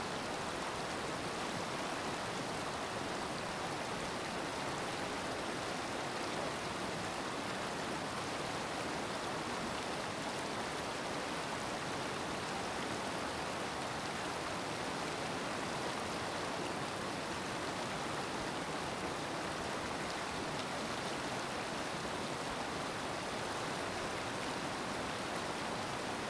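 Water from an open dam shutter rushing down a concrete spillway: a steady, even rush of falling water.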